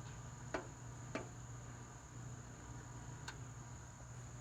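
Faint steady high insect trill, typical of crickets, under a low hum. There are three light clicks: about half a second in, just after a second, and about three seconds in.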